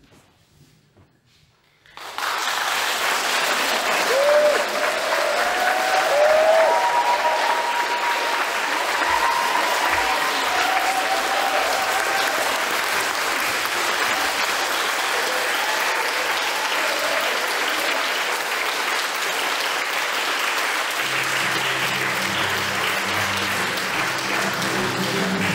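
Audience applauding and cheering loudly, starting suddenly about two seconds in, with a few whoops in the first several seconds. Guitar music comes in under the applause near the end.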